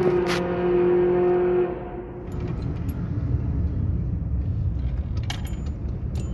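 A steady droning tone cuts off about two seconds in. The low rumble of a car driving follows, heard from inside the cabin, with keys jangling and clicking.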